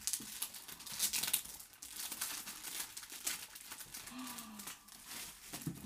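Cardboard and packing paper crinkling and rustling as a picture is worked loose from the bottom of a cardboard box, with irregular quick crackles.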